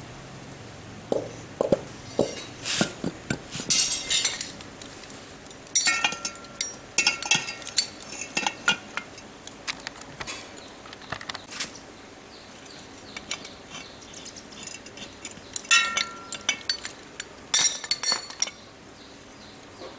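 Metal clinks and knocks of a gear puller and hand tools worked against an air compressor's spoked belt pulley, coming in clusters. A couple of the knocks ring on briefly.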